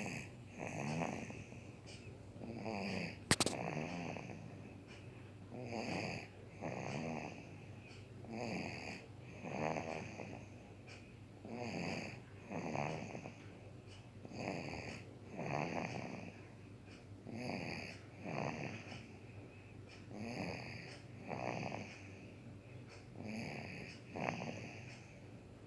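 Young child snoring in sleep, in a steady rhythm of two snores close together about every three seconds. A single sharp click about three seconds in.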